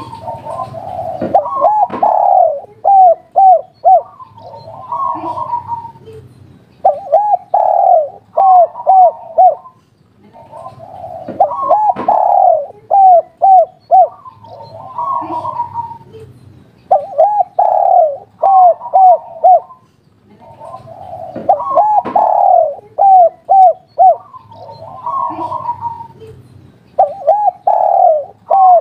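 Spotted dove (tekukur, derkuku) cooing its 'kuk 3' song: the same phrase about every five seconds, about six times, each ending in a run of short, clipped coos.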